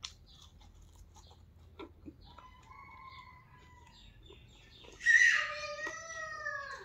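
A rooster crows loudly about five seconds in, one long call that drops in pitch at its end, after a fainter crow a few seconds earlier. Soft chewing clicks from someone eating run underneath.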